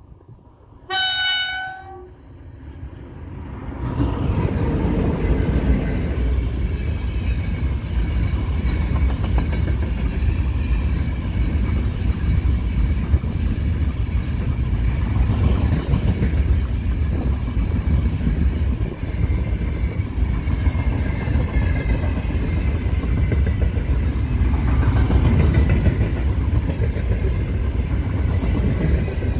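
A 2ES6 Sinara electric locomotive gives one short horn blast about a second in. From about four seconds the locomotive and its long freight train of open gondola wagons pass close by, with a steady rumble and clatter of wheels on the rails.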